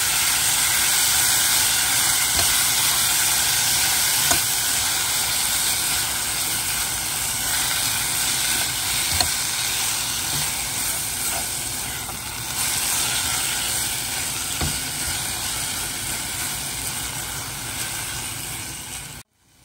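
Cooked chopped collard greens sizzling in hot olive oil with sautéed garlic as they are stirred with a silicone spatula: a steady hiss that eases slowly, with a few light knocks. It cuts off abruptly just before the end.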